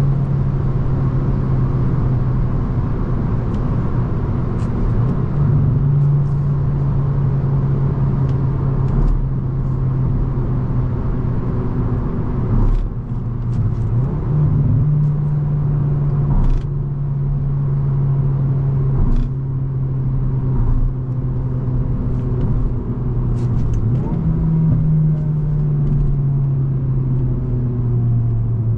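Hyundai i20 N's 1.6-litre turbocharged four-cylinder engine pulling at motorway speed over steady road noise. The engine note steps up three times and eases down slowly after each, and there are a few short clicks.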